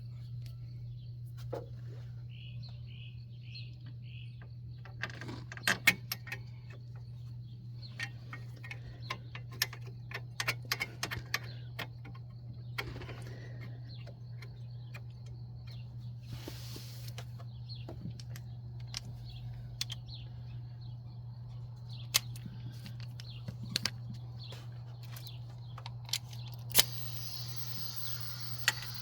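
Scattered clicks, clinks and taps of hand tools and metal parts being handled, over a steady low hum. A few bird chirps come about two to three seconds in, and a hiss starts near the end.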